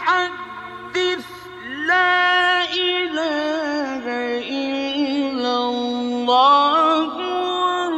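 Quran recitation in the melodic mujawwad style: one male voice in a high register holding long, drawn-out notes with ornamented turns. It is softer for the first couple of seconds, then louder. A faint steady hum lies beneath.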